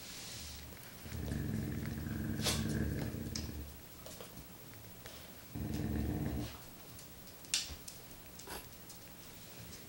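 Standard poodles play-growling: a low, rough growl of about two and a half seconds starting about a second in, then a shorter one near the middle, with a few sharp clicks in between.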